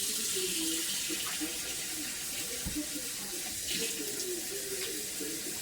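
Steady rush of running water, a constant hiss with faint wavering gurgles beneath.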